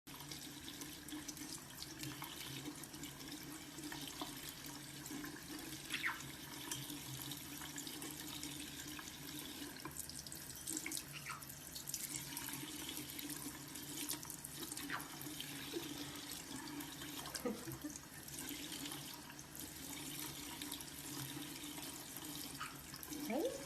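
Tap water running steadily and splashing over a bathing parrot, with many small drips and ticks. A few short high squeaks come through the water sound.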